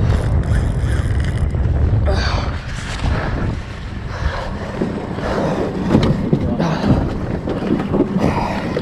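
Wind buffeting the microphone over a small boat's outboard motor running steadily at low speed.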